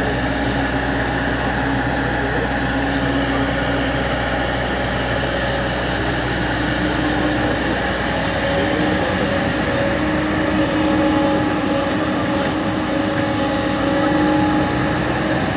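Hydraulic excavator's diesel engine running steadily under working load, its pitch lifting slightly about halfway through.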